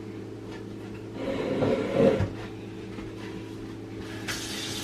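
Kitchen sink faucet turned on near the end, water starting to run in a steady hiss. Before it, a brief muffled rustle a little over a second in, over a low steady hum.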